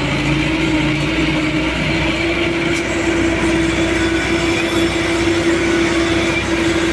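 ACE mobile crane's diesel engine running steadily under load, with a constant hydraulic whine as the empty hook is winched up.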